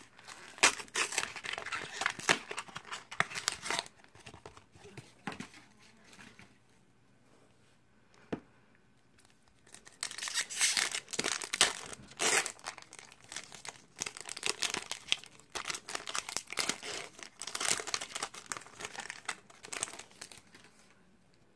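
Magic: The Gathering booster pack's foil wrapper crinkling and being torn open by hand, in bursts of rustling with a quieter pause of a few seconds in the middle.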